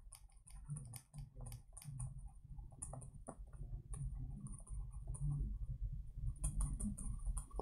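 Stylus pen tapping and scratching on a tablet while handwriting: an irregular run of small clicks, over a low steady hum.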